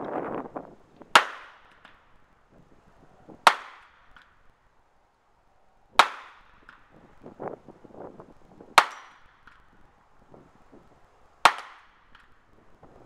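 Armscor M200 .38 Special revolver fired five times, each a single sharp crack with a short echo, spaced about two and a half seconds apart. Every round goes off with no misfire, a sign that the gun is working properly.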